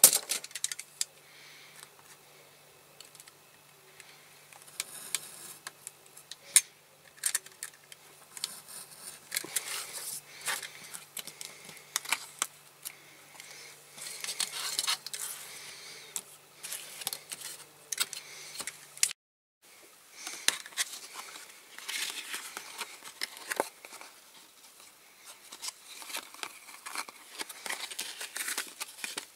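Close hand-work noises: scattered snips, clicks and crinkling, as of scissors cutting thin material. A faint steady hum runs underneath until a sudden short dropout about two-thirds of the way through, after which the snipping and handling carry on.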